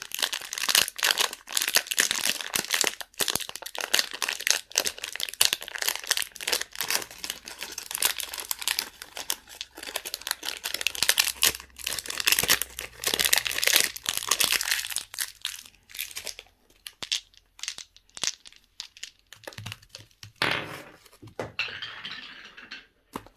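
Candy wrappers crinkling and tearing as they are pulled open: a dense crackle for most of the time, thinning out later, with one louder rustle near the end.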